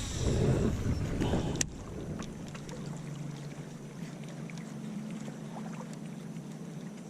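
Low rumbling handling or wind noise ending in a sharp click, then a faint steady low hum.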